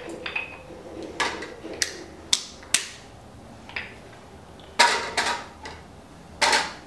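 Sharp metal clicks and clanks from a hydraulic torque wrench being handled and its square drive set down onto a socket on a steel bench. The knocks come singly in the first half, then several in quick succession about five seconds in and again near the end.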